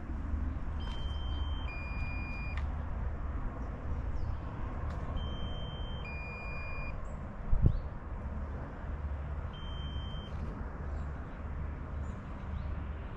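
Wind buffeting the microphone in a steady low rumble, with a repeated electronic-sounding two-note beep, a higher tone then a lower one of under a second each, heard twice about four seconds apart and a third time as the higher note only. A single thump about two-thirds of the way through.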